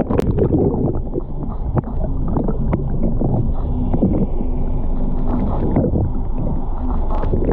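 A camera plunging under the water with a splash, then muffled underwater sound with all the high sounds cut off: water sloshing and bubbling around the camera, with small knocks and a low steady hum.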